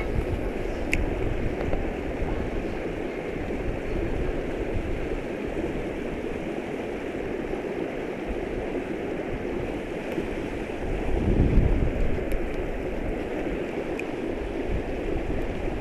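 Water pouring over a beaver dam into a fast outflow channel: a steady rushing noise that swells briefly about eleven seconds in.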